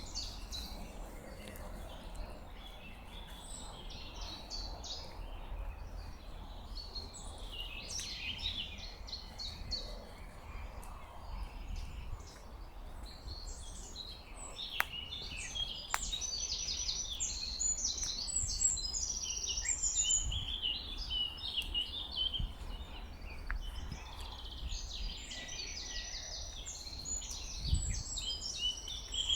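Songbirds singing in a spring forest: several birds overlapping in a steady chorus of high chirps and trills, busier in the second half, over a faint low rumble.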